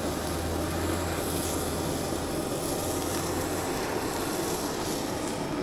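Steady background noise of a working restaurant kitchen: an even rush like ventilation, with a low hum that stops a little over halfway through.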